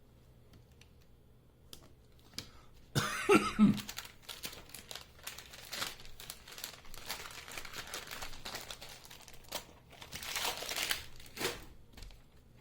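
Thin adhesive repair tape and its plastic backing crinkling and rustling as it is handled and peeled. It starts suddenly about three seconds in with the loudest crackle, then goes on in irregular rustles until near the end.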